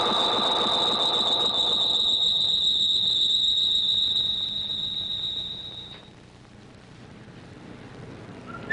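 Soundtrack sound effect: a loud, steady shrill whistling tone over a rushing noise. It fades away about five to six seconds in, leaving a faint hiss.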